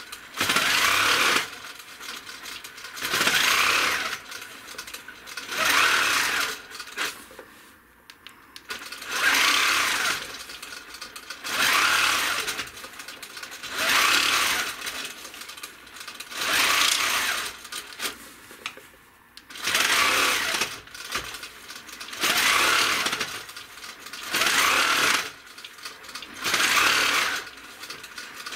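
Handi Quilter longarm quilting machine stitching in short runs of about a second, stopping and starting again roughly every two seconds during ruler work.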